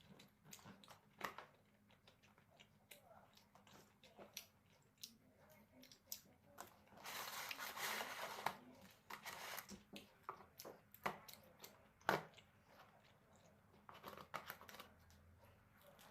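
Close-up eating sounds from a meal of jjajangmyeon with octopus: chewing and scattered light clicks of utensils, with a noisy stretch of a couple of seconds in the middle.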